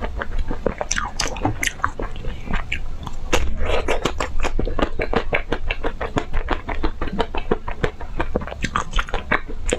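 Close-up chewing and biting of crunchy ice cream: dense, irregular crackling crunches, several a second, throughout.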